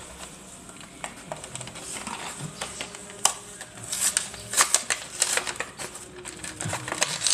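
Clear plastic blister of a Hot Wheels card crackling and clicking as fingers pry and bend it open. The crinkling grows denser and louder about four seconds in.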